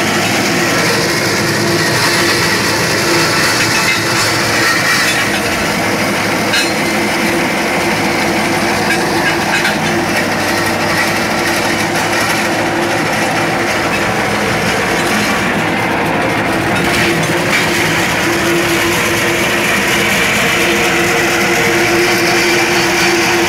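Tractor-mounted stone crusher driven by a New Holland T7200 tractor, grinding rock and soil: a loud, steady mechanical din with a constant drone and occasional clicks of stone.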